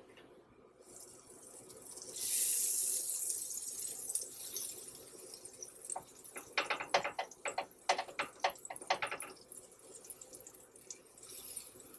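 Butter sizzling on a hot griddle as a silicone brush spreads it. The sizzle rises about two seconds in, and a run of short, quick brushing strokes comes between about six and nine seconds in.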